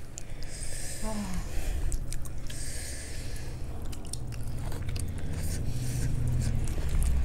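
Close-miked chewing and wet mouth smacking of people eating soft, saucy food by hand, with many sharp mouth clicks.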